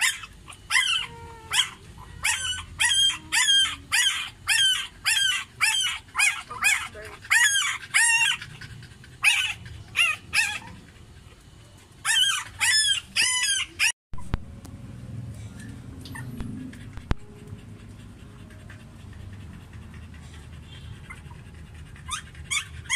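Week-old Doberman-cross puppies squealing and whining, a fast run of short high-pitched yelps about two a second that stops abruptly about halfway through, leaving only faint low background noise.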